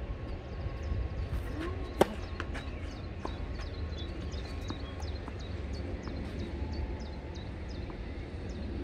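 A tennis ball struck once by a racket about two seconds in, a single sharp crack. Under it runs a steady low rumble, and a small bird repeats a short high chirp about twice a second.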